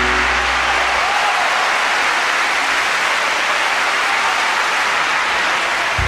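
An audience applauding; a held musical chord cuts off just after the start, leaving a steady wash of clapping.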